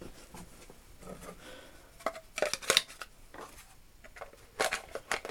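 Small metal tools clicking and clinking as they are handled in a tool box drawer, in two short clusters of sharp clicks with brief ringing.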